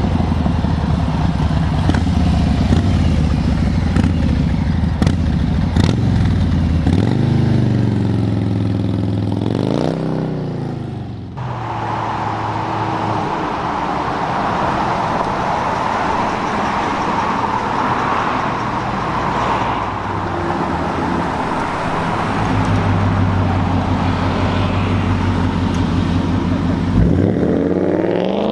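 American V8 car engines. One rumbles at low revs, then revs up in a rising sweep that breaks off suddenly about eleven seconds in. A steady rushing noise follows, then another low engine rumble that rises in revs near the end.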